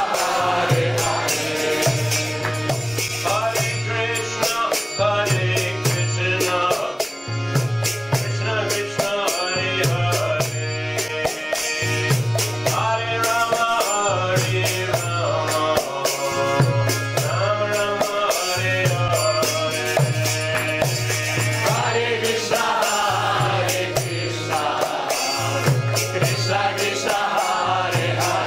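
Kirtan music: voices singing a devotional mantra over a fast, steady beat of small hand cymbals and drum, with a low sustained tone coming back in regular pulses.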